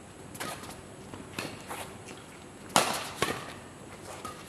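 Badminton rackets hitting a shuttlecock during a doubles rally: a few light strikes, then a sharp, loud smack about two-thirds of the way through, answered by another hit half a second later, with footsteps on the court between.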